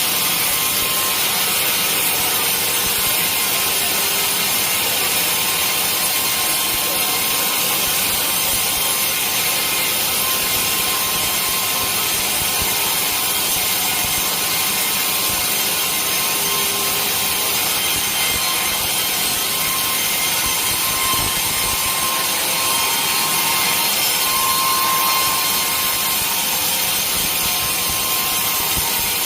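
Sawmill saw cutting through a large teak log: a steady, loud sawing hiss with a faint thin whine that grows stronger near the end.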